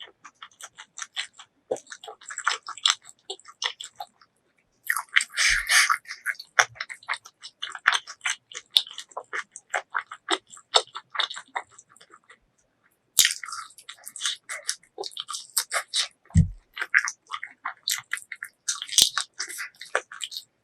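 Close-miked eating: wet chewing and biting with occasional crunches, pausing briefly twice.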